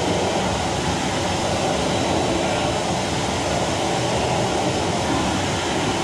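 Rowenta canister vacuum cleaner running, a loud, steady, even noise.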